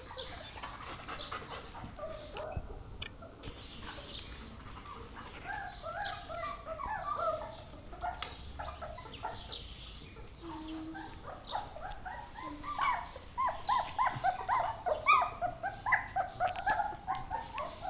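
Several puppies whimpering and yipping in short, high, rising cries, coming thicker and louder in the last few seconds.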